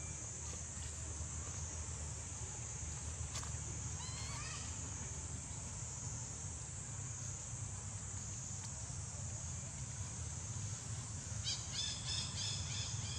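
Outdoor ambience: a steady high insect drone over a low rumble. A short rising high-pitched animal call comes about four seconds in, and a quick series of high-pitched chirping calls follows near the end.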